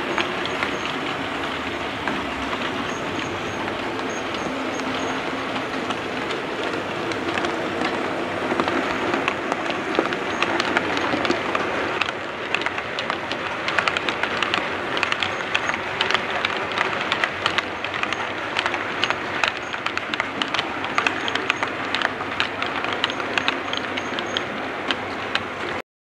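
A model railway train, a steam locomotive hauling coaches, running along the track with a steady rushing wheel-and-motor noise. From about 12 seconds in there are many sharp clicks over it.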